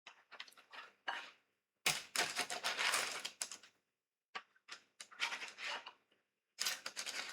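Brownies being lifted onto a plate with a kitchen utensil: quick clicks and scrapes of the utensil on the plate and tray, coming in several short bursts with gaps between.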